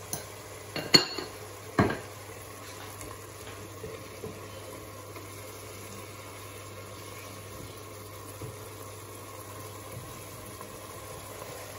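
A few sharp kitchen clinks in the first two seconds, the loudest about a second in, as salt is spooned from a ceramic jar into a pot. Then a steady simmering hiss from the pots on the hob, with faint knocks of a wooden spoon stirring diced leeks and carrots in a pot.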